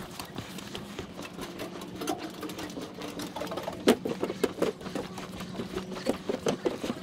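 Footsteps on wooden gangway and dock planks: a quick, even run of knocks, about three a second later on, with one sharp, louder knock about four seconds in. A steady low hum runs underneath.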